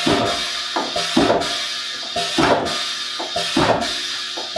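Background music with a drum-kit beat and cymbals, which cuts off abruptly at the very end.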